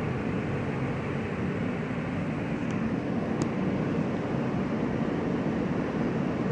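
R160 subway car running along the track, heard from inside the car: a steady rumble of wheels on the rails, with two faint ticks about three seconds in.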